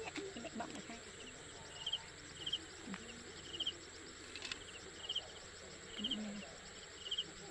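Quiet open-field ambience with a small animal's high chirp repeating every half second to a second, each chirp a quick run of rapid pulses.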